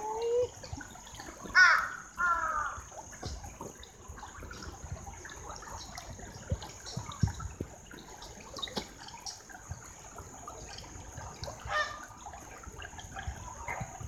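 Shallow stream trickling over stones, with two loud harsh bird calls about one and a half to two and a half seconds in and another, weaker one near twelve seconds.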